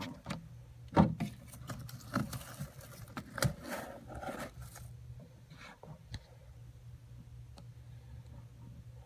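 Savannah monitor struggling with a white rodent in its jaws on coconut-fibre bedding: irregular scrapes, rustles and knocks, the loudest about a second in, dying away after about five seconds over a steady low hum.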